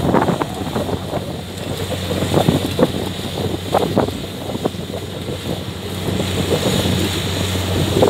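Kubota DC70 tracked combine harvester running while harvesting rice: a steady engine hum with irregular rustling and crackling over it, and wind buffeting the microphone.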